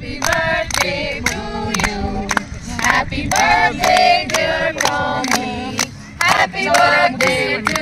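A group singing a birthday song together, mostly women's voices, clapping along in time about three claps a second.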